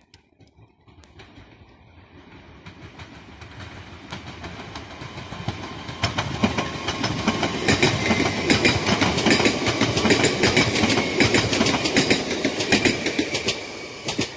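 A 27WEb (Newag Impuls) electric multiple unit passing on the main line. It grows louder as it approaches, then its wheels clatter rapidly over the rail joints with a steady whine above. The sound cuts off abruptly at the end.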